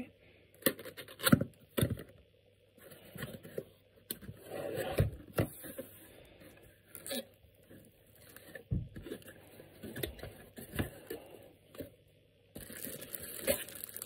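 A cardboard box is opened and its contents handled by hand: scattered scrapes and knocks from the box flaps, then rustling of plastic bags and bubble wrap near the end.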